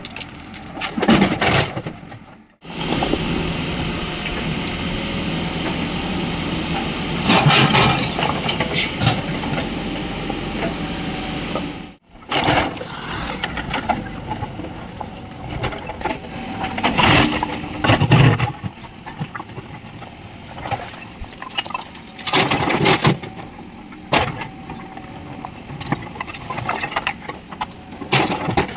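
Diesel engine of a Mahindra backhoe loader running under load as it works, with several louder bursts of about a second each.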